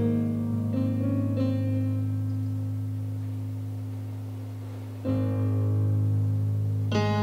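Piano-voiced chords played on a Yamaha stage keyboard: a low chord with a few higher notes added in the first second and a half, fading away slowly, then a fresh chord struck about five seconds in and another near the end.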